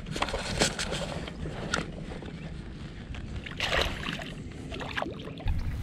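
Scattered knocks and clicks of gear against a plastic fishing kayak, then a splash about three and a half seconds in as a released largemouth bass hits the water.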